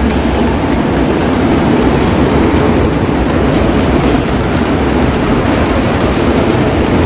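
Loud, steady rush of churning water pouring through a water ride's channels and over a small drop.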